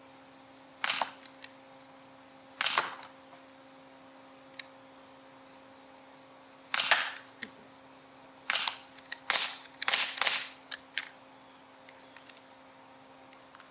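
Gamo P-430 CO2 air pistol firing .177 pellets, a string of sharp pops spaced a few seconds apart at first, then several in quick succession a little past the middle.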